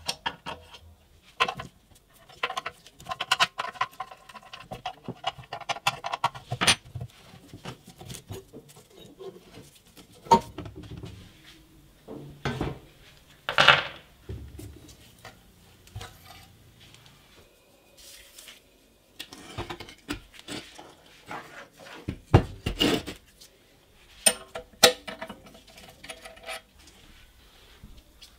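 Metal clinking and knocking from a spanner working the rusty nuts and bolts of a 1969 Iwata Minicom air compressor, and loose steel hardware and parts set down on a wooden workbench. The clinks and knocks come irregularly, with a run of ringing metallic clanks a few seconds in.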